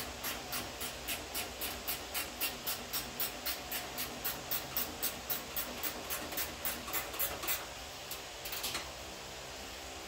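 Hand ratchet wrench being worked on a fender bolt: quick, even raspy clicking strokes, about three or four a second, stopping about three-quarters of the way through, with a brief last few strokes a second later. A steady low hum runs underneath.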